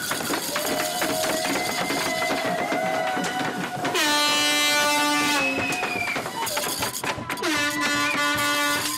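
Purim graggers (ratchet noisemakers) whirring and rattling fast and nonstop to drown out Haman's name during the Megillah reading. Toy horns blare over the racket, in two long steady notes about four seconds in and again near the end.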